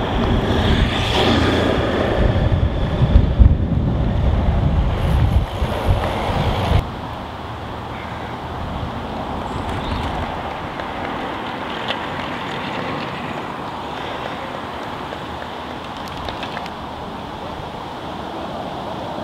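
Roadside noise: a loud, gusty low rumble for the first seven seconds or so that stops abruptly, then a steady hiss of wind and distant road traffic.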